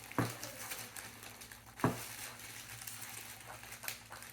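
Two dull knocks about a second and a half apart, with light rustling of packaging between, as parts and packing are handled.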